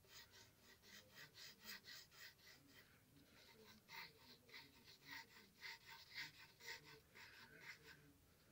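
Faint scratching of a graphite pencil on lined notebook paper in quick, repeated sketching strokes, about three or four a second. The strokes pause briefly about three seconds in, then carry on.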